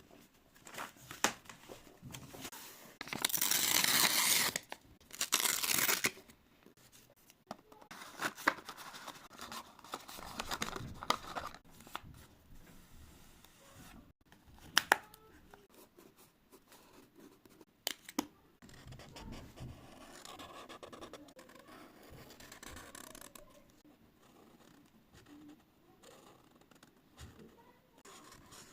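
Scrapbooking paper being torn, cut with scissors and handled. There are two loud stretches of tearing about three and five seconds in, then scattered rustling, scraping and a few sharp snips or clicks.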